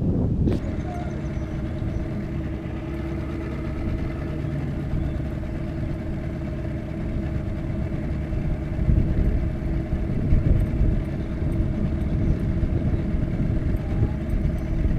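Boat motor running steadily with a constant hum and a low rumble underneath.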